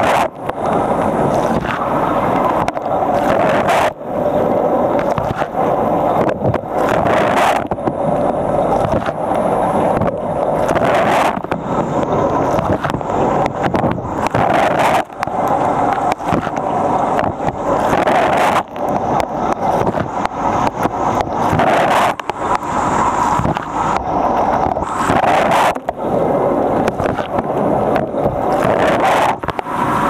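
Fisher & Paykel Nautilus dishwasher mid-wash, recorded from inside the tub: continuous rushing and splashing of water jets against the camera, with irregular sharper slaps of spray.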